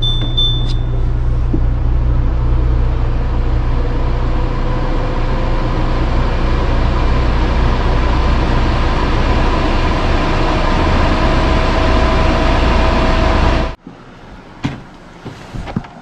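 Winix PlasmaWave air purifier beeping once at a button press, then its fan running loud and steady with a deep hum and a faint whine that slowly rises in pitch as the fan speeds up. The noise stops abruptly near the end.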